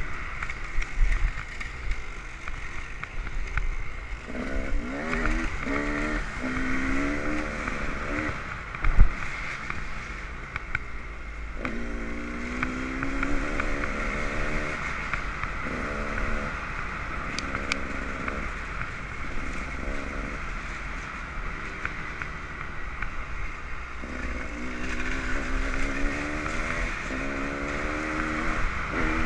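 Dirt bike engine running on a trail ride, its pitch climbing again and again as it revs up through the gears and easing off in between. A single sharp knock about nine seconds in.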